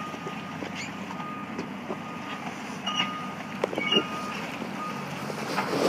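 Reversing alarm of a demolition machine beeping repeatedly, a single high steady tone, with a few short knocks among the beeps.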